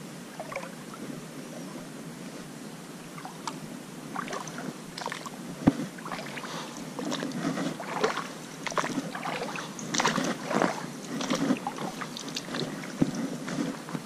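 Footsteps on a wet, sandy creek bank: irregular scuffing and crunching steps through mud and leaves, growing denser and louder from about four seconds in, with a light slosh of water.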